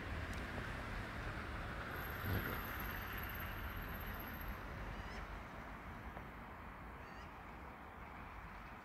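Steady outdoor background noise that slowly fades, with one short animal call about two seconds in. The distant approaching locomotive is not yet plainly heard.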